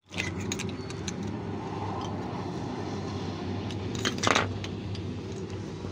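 Metal domed tractor-decoration knobs clicking and clinking against each other as a hand sifts through a pile of them, with one louder scrape about four seconds in, over a steady low hum.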